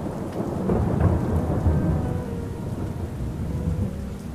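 Rolling thunder over steady rain, swelling about a second in and slowly dying away; faint background music notes come in under it from about halfway.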